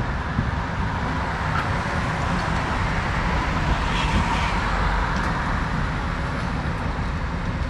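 Excavator's diesel engine running steadily, a continuous low rumble that swells slightly in the middle, with a few faint knocks.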